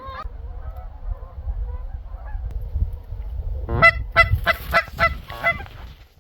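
Canada geese honking: faint scattered calls at first, then a quick series of about seven loud honks past the halfway point, over a low wind rumble on the microphone.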